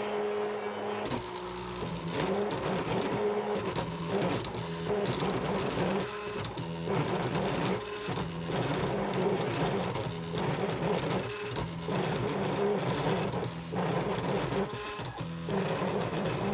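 Stepper motors of a homemade CNC pen plotter whining as it draws, the tone jumping between a few steady pitches and breaking off briefly as the axes change speed and direction. The steppers run at a coarse steps-per-mm setting, which the maker blames for poor resolution and skipped steps.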